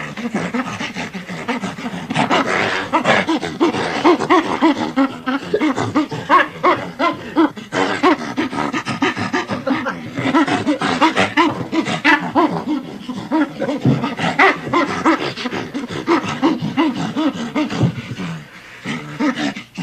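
Chimpanzee laughing as it is tickled: a long run of rapid, breathy panting laughs that eases off near the end.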